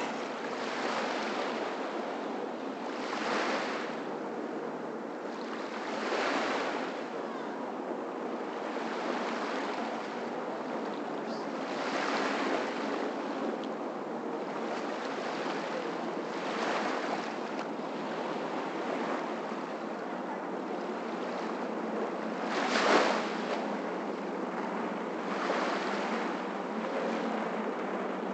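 Small waves lapping and washing onto a sandy shore over a steady rush, swelling every few seconds, with one stronger wash late on.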